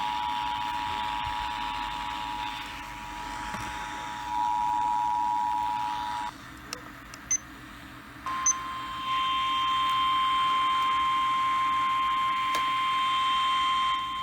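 Emergency Alert System two-tone attention signal, a steady dual tone with hiss behind it, cutting off about six seconds in. After a short gap with a few clicks, a single steady alert tone, the NOAA Weather Radio 1050 Hz warning alarm, starts about eight seconds in and holds, with hiss above it.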